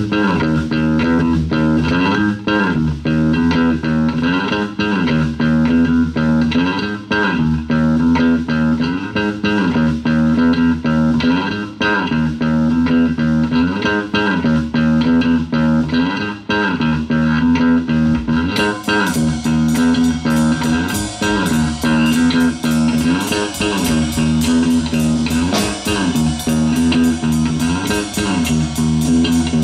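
A live rock band's intro: an electric bass guitar plays a repeating riff alone, with a slide in each phrase that comes round about every two seconds. About two-thirds through, the drums come in with a fast, steady cymbal beat under the bass.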